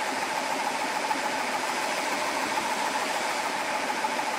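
GX CS4 portable high-pressure PCP air compressor running steadily, an even hiss with a steady mid-pitched hum. It is pressurising the hose and inline filter, building up to the 150 bar already in the rifle's bottle before air starts flowing into it.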